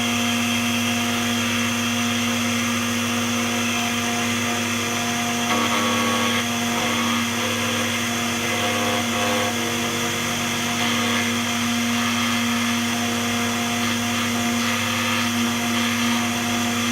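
DEFU 368A key cutting machine's motor running steadily with an even hum while it mills a laser-cut (sidewinder) Honda key blank; in the middle the tone wavers a little as the cutter works the metal.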